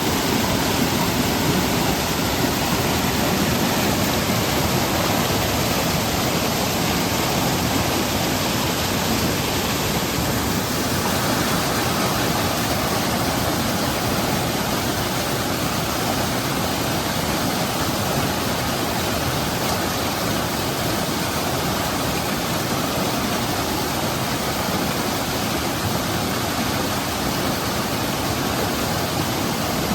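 A monsoon-fed seasonal stream rushing and splashing over rocks and pebbles, a loud, steady flow of water.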